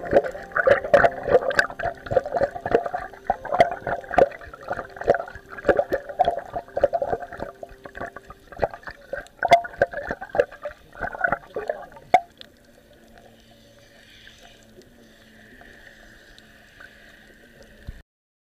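Water bubbling and gurgling around a submerged camera, with many sharp knocks and clicks; about twelve seconds in it drops to a faint steady hiss.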